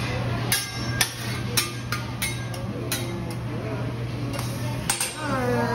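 Metal teppanyaki spatulas striking a flat steel griddle in a series of about ten sharp, unevenly spaced clacks, roughly two a second, over a low steady hum.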